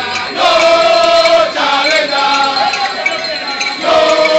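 A group of voices singing a chant together in long held notes, phrase by phrase, with short breaks between the phrases.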